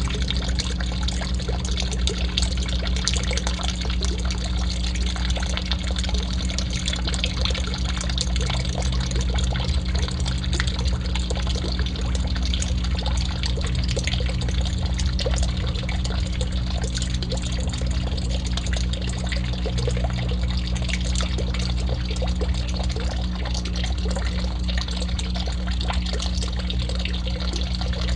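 Water pouring and trickling steadily into a garden pond from its pipe outlet, with a steady low hum underneath.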